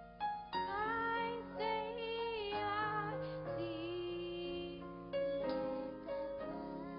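Group of young girls singing together into microphones, with sustained keyboard accompaniment under the voices.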